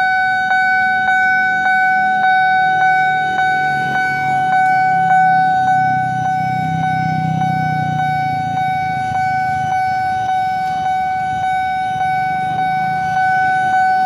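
Railway level-crossing warning bell ringing: a steady electronic tone struck again about twice a second. A low rumble swells and fades around the middle.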